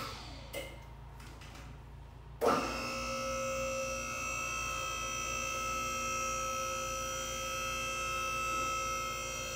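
Electric hydraulic power unit of a two-post car lift switching on about two and a half seconds in and running with a steady whine as it raises the car.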